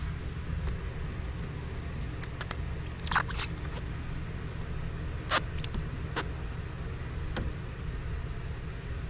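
Gerbil pups scrabbling in nest bedding: a few short, sharp crackles and clicks, the loudest about three and five seconds in, over a steady low hum.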